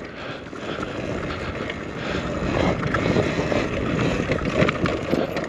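Talaria MX4 electric dirt bike ridden over a rough dirt trail: a steady rush of wind and tyre noise with scattered knocks and rattles from the bike over bumps, and no engine note.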